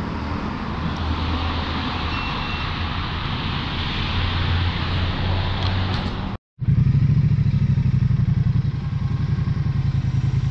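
Vehicle engine running steadily. After a brief dropout about six and a half seconds in, a louder engine idles with a rapid, even pulse.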